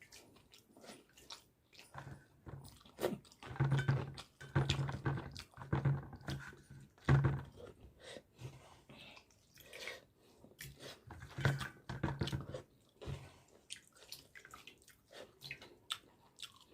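A person chewing and biting a mouthful of pakhala (water-soaked rice) and fried bhaja, close to the microphone, with many wet clicks and crunches.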